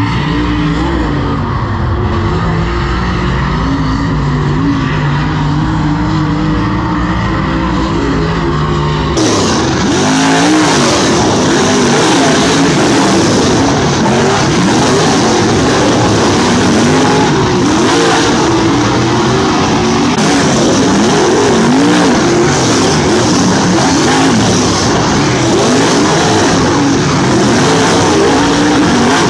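A dirt super late model's V8 running at a steady idle, then, after an abrupt change about nine seconds in, several super late models racing on the dirt track, their engines rising and falling in pitch as they go through the corners.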